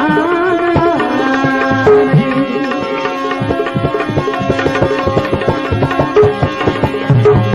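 Gujarati devotional bhajan music: a held, wavering sung note ends about a second in, leaving an instrumental interlude of tabla strokes under steady held melodic tones.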